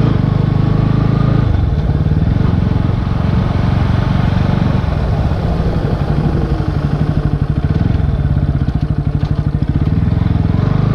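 Bajaj Pulsar NS160 BS6's single-cylinder engine running while the bike is ridden. Its note shifts several times, and for a few seconds past the middle the firing pulses come slower and separate, as at low revs.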